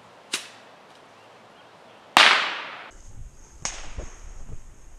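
Bottle rockets bursting: three sharp cracks, the loudest about two seconds in with a short echoing tail.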